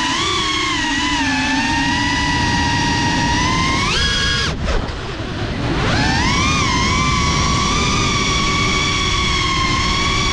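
FPV quadcopter's electric motors whining and shifting in pitch with the throttle. About four seconds in the pitch jumps up, then the whine nearly drops out for a second or so as the throttle is cut, and swells back rising.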